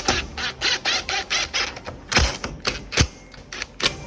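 Rapid, irregular clicks and rattles of hard plastic, with two heavier knocks about two and three seconds in, as the plastic cover shell of a Genie screw-drive garage door opener is handled and fitted back on.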